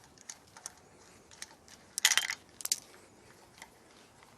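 Small metal parts and tools clinking against each other, with scattered light clicks and a loud cluster of jangling clinks about two seconds in, then a few more shortly after.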